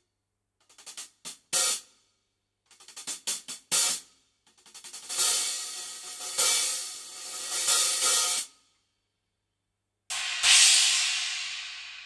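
15-inch HQ Cymbals two Raw Bell hi-hats in B20 bronze, played with sticks: two short runs of quickening strokes, each ending on a louder accent, then a longer ringing, washy pattern with accents that is cut off sharply about eight and a half seconds in. After a short pause, one cymbal is struck once and rings out, slowly fading.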